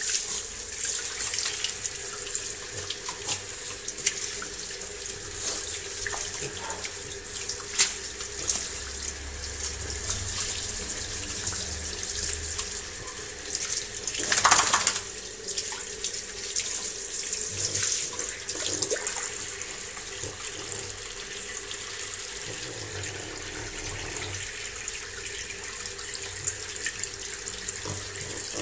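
Water running steadily from a tap and splashing, with a louder gush about halfway through.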